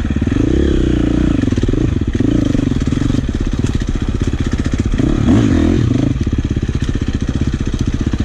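Four-stroke dirt bike engine running close up, its revs rising and falling as the bike is ridden along the trail.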